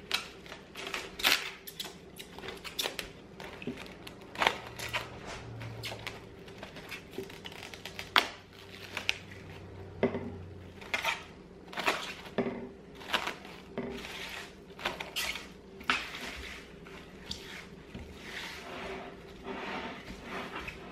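Plastic cling wrap being pulled off its roll, torn and crinkled as it is stretched and pressed down over a glass mixing bowl, giving many irregular crackles with light knocks against the bowl.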